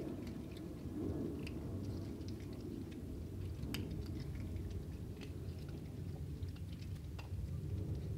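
Kittens crunching dry cat kibble, heard as scattered small crunches and ticks over a steady low rumble.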